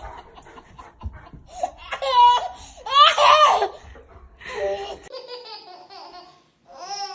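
A baby laughing hard in several high-pitched bursts, loudest about two to three seconds in.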